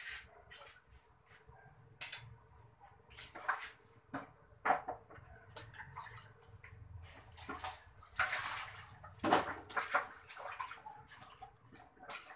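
Water splashing and pouring in irregular bursts as things are washed by hand in a basin with water dipped from a bucket, over a faint steady hum.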